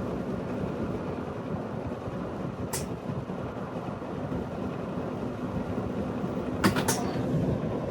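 Panasonic LJ22 split air conditioner's indoor unit running with a steady fan hum, broken by sharp clicks: one a little under 3 seconds in and a quick double or triple click near the end. This is the recurring clicking fault, which the owner puts down to the fan wobbling and knocking against a gap in the drain pan.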